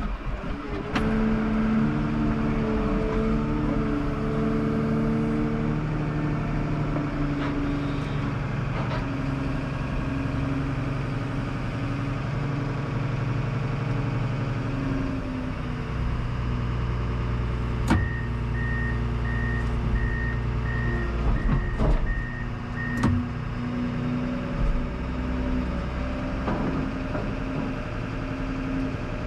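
Komatsu WA320 wheel loader's diesel engine running under load, heard from the cab, revving up about a second in as the forks are worked. In the second half its backup alarm beeps steadily for about five seconds, with a few sharp knocks around the same time.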